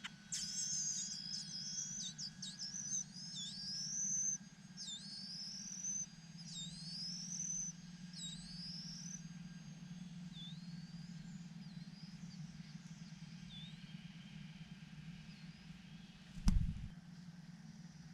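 A small bird giving a quick series of high, swooping calls, each dipping and then rising, that fade and space out over about the first fifteen seconds, over a steady low hum. A single sharp knock comes near the end.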